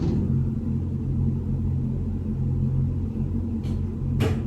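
A steady low hum, with one sharp click about four seconds in.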